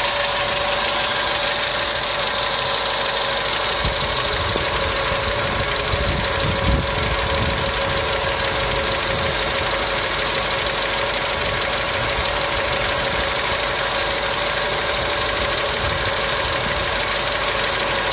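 Mercedes M111 supercharged four-cylinder engine idling with a rapid, steady ticking and a constant whine. The tick is taken for hydraulic lifter (lash adjuster) noise, though the mechanic then suspects a bearing, likely the belt tensioner's.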